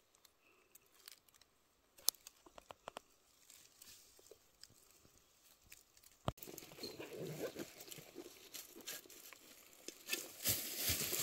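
Faint scattered small clicks, then from about six seconds in a denser rustling and crackling, loudest near the end. The sound is handling and movement noise.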